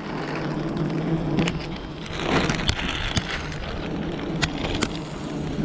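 A swarm of wild honeybees buzzing close around the microphone as their exposed cliff comb is disturbed: a steady low hum under a hiss, with scattered sharp ticks.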